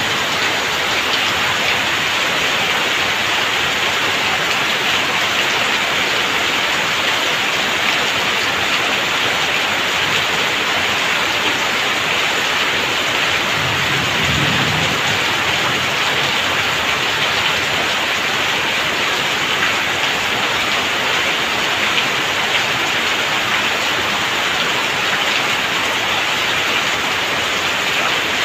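Heavy downpour: rain falling in a steady dense hiss, with water pouring off a roof edge onto the ground. There is a short low rumble about halfway through.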